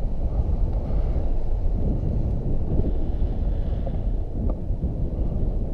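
Wind buffeting the microphone of a camera on a paraglider in flight: a steady low rumble.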